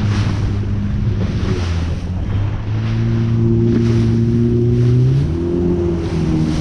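Yamaha WaveRunner FX HO jet ski's four-stroke engine running at speed, with water rushing and spray hissing off the hull. The engine note steps up about three seconds in and shifts again near five seconds.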